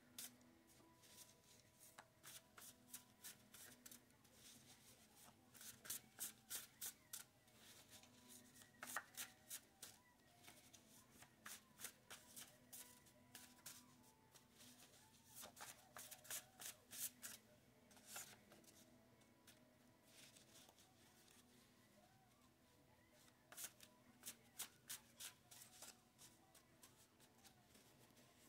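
A tarot deck being shuffled off-camera: faint bursts of rapid card flicking, several separate rounds with short pauses between them.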